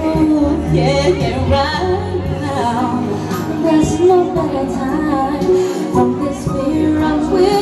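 A woman singing into a handheld microphone over backing music, holding some notes with a wavering vibrato.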